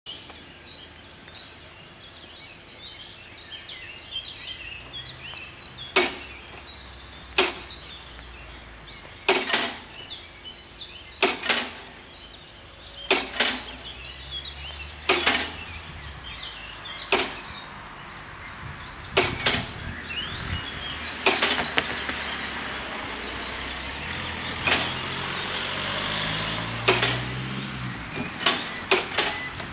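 Level-crossing warning bells striking about once every two seconds, often as two quick strokes together, starting about six seconds in: the crossing's warning has begun before the barriers lower. Birds chirp faintly at first, and a low drone rises near the end.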